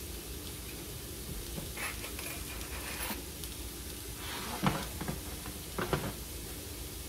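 Potatoes frying in a pan with a steady low sizzle, broken by a few short clattering knocks of kitchen pans or utensils, the loudest about two-thirds of the way through.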